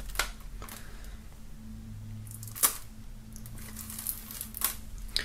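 Knife blade cutting the plastic shrink-wrap on a CD jewel case: faint scratching with a few sharp ticks of the blade against the plastic, the sharpest about two and a half seconds in, over a low steady hum.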